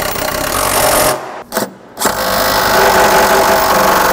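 Cordless DeWalt driver running a brace bolt down in three runs: about a second, a brief burst, then a longer run of over two seconds. The bolt binds in a rusted-up hole and will not seat.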